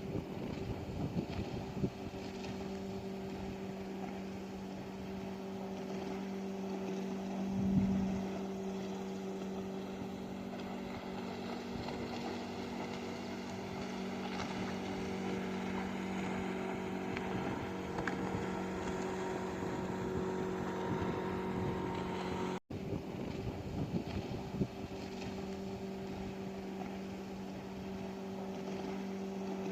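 Motorboat engine running steadily, a low droning hum that swells briefly about eight seconds in. The sound cuts out for an instant about two-thirds of the way through.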